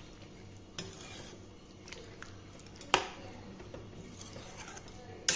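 Perforated metal spatula stirring chicken gravy in a metal kadai, scraping and knocking against the pan, with a sharp clack about three seconds in.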